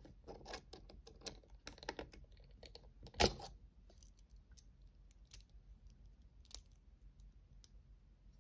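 Light scattered clicks and ticks of a small screwdriver working the screws of a carbon fiber folding knife during reassembly, with one sharper knock about three seconds in.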